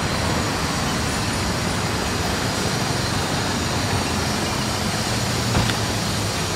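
Steady street traffic noise with a low motor-vehicle hum, and a single brief knock a little over five seconds in.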